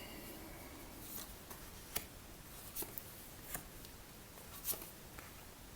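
Faint handling noises from tarot cards: a few soft, scattered clicks and light rustling over the hiss of a small room.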